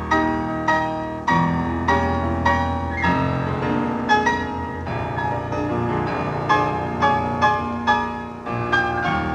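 Piano music in the soundtrack: notes and chords struck at a fairly even, unhurried pace, about one every half second, with a brief softer dip near the end.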